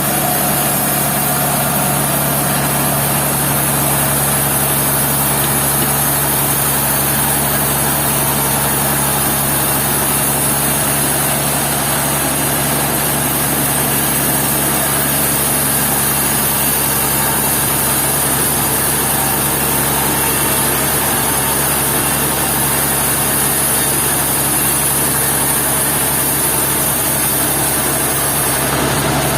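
Sawmill machinery running steadily with a constant engine-like hum and a broad hiss, no breaks or changes.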